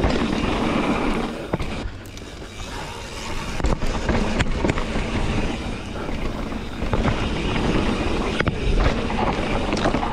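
Mountain bike rolling along a dirt trail: steady tyre and wind rumble on the microphone, broken by sharp clatters and knocks from the bike over bumps.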